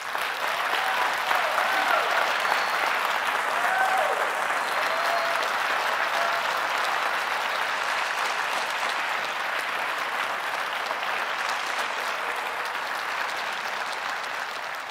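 Large audience applauding, breaking out at once and holding steady. A few voices whoop and cheer in the first few seconds.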